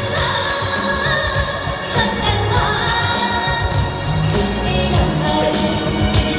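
Trot song performed live: a woman singing a gliding melody over backing music with a steady beat, through a PA system.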